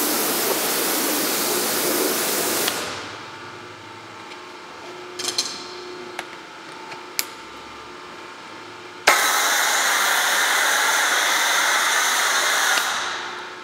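Pressure washer spraying water through a 20-inch lance with a 25-degree tip, cutting off about three seconds in. A few sharp clicks follow as the foam cannon is coupled on, then the foam cannon sprays a loud hiss from about nine seconds in until it fades out near the end.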